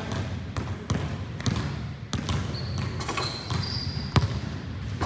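Basketballs bouncing on a gym floor, a string of irregular sharp thuds echoing in the hall, the loudest about four seconds in. A few short high squeaks come in around the third second.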